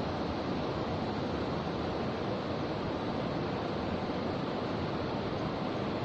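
Steady rushing of shallow river water flowing, an even noise with no breaks.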